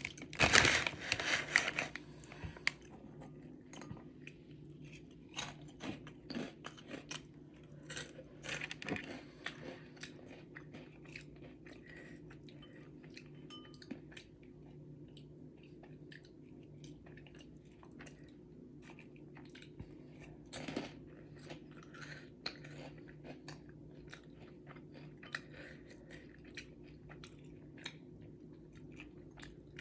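Close-up mouth sounds of a person eating instant noodles: wet chewing with many small clicks and smacks, loudest in the first couple of seconds and again briefly around the middle, over a steady low hum.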